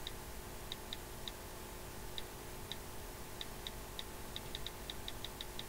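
iPod touch on-screen keyboard clicks as a login is typed in: faint, irregular ticks, sometimes several a second in quick runs.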